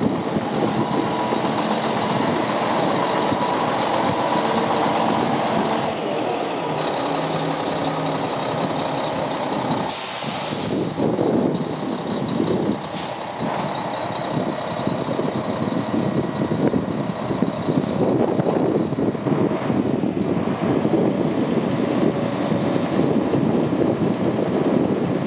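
1999 Mack RD688S tri-axle dump truck's diesel engine running steadily as the dump body is raised. A long burst of air hiss about ten seconds in, and two short hisses a few seconds apart later.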